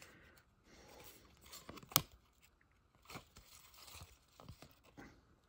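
Cardboard hockey trading cards sliding and flicking against each other as a stack is flipped through by hand: faint rustles with a sharp card snap about two seconds in.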